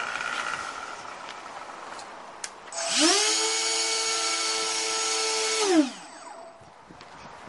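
Electric ducted fans on a model trainer aeroplane spinning up quickly to a steady whine, holding for about three seconds, then winding down and stopping.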